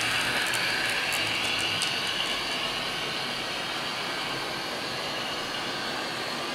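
Roco H0-scale TEE Edelweiss diesel railcar model running along the track with a steady, noisy running sound that gradually fades as it moves away. A few faint clicks come in the first two seconds.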